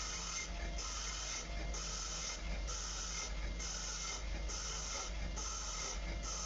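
A machine running with a steady low hum and a hiss that repeats evenly, about once a second.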